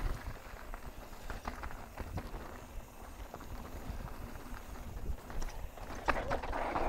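Mountain bike riding fast over a rocky dirt trail: tyres crunching and the bike knocking and rattling over rocks, over a steady low rumble of wind on the microphone. The clatter gets louder about six seconds in.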